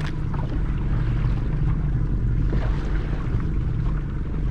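A small fishing boat's engine running steadily with a low, even hum, with light wind and water noise over it.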